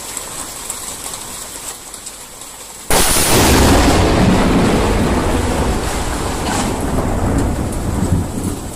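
Steady rain falling, then, about three seconds in, a sudden, very loud crack of thunder from a close lightning strike, followed by a heavy rumble that carries on and slowly eases.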